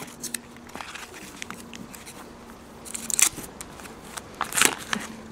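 Pages of a thick paper catalogue being split apart and handled: paper rustling and crinkling, with two louder rustles about three seconds and four and a half seconds in.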